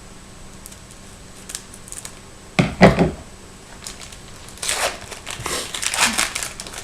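A trading card pack's wrapper being handled and torn open, crinkling and rustling in a run of short strokes over the last two seconds, after a single loud handling thump about two and a half seconds in.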